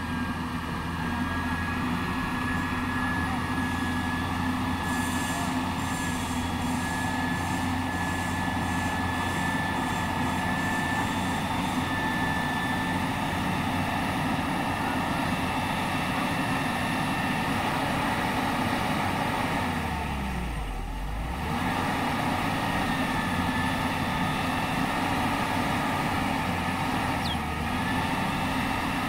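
Diesel engine of a Hyundai 210W-9S wheel excavator running steadily while it is manoeuvred at the foot of the trailer ramps. About twenty seconds in there is a brief low rumble.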